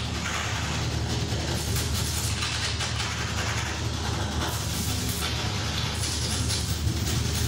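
Experimental electronic noise music: a steady low drone under a harsh, dense hiss whose texture shifts every second or so, with no beat.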